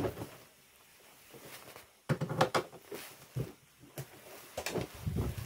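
Household handling noises: a quiet stretch, then about two seconds in a run of short knocks, clicks and rattles as a fridge is opened and the things in it are handled.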